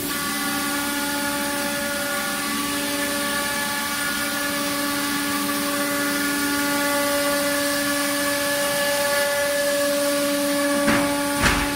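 Automatic-loading ATC CNC wood router running: a steady whine of several tones over a constant hiss, with two short knocks near the end.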